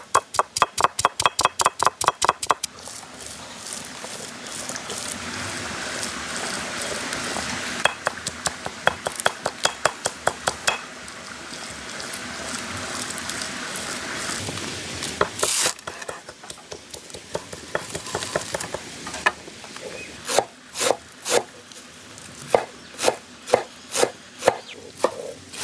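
Knife chopping food on a board in runs of sharp, even strokes: a fast run of about seven strokes a second at the start, then slower runs of two or three strokes a second later on, with a steady background hiss between.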